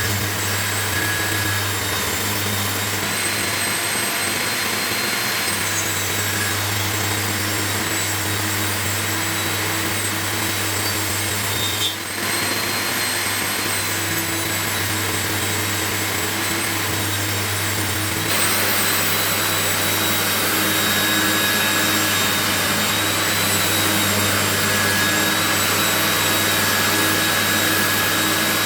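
Woodworking power machinery running steadily, with a low hum and a thin high whine. It dips briefly about twelve seconds in and gets a little louder around eighteen seconds.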